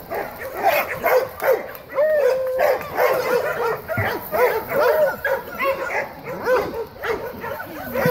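A pack of dogs whining and yipping at once, many short rising-and-falling cries overlapping without a break, in excited greeting.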